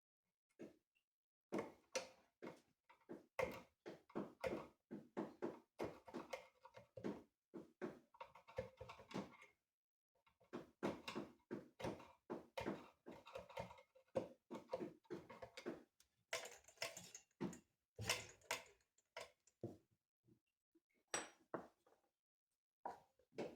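Rapid, irregular metallic clinks and knocks from hands and tools working on an old Maytag washing-machine engine, with a pause about ten seconds in and only scattered knocks near the end.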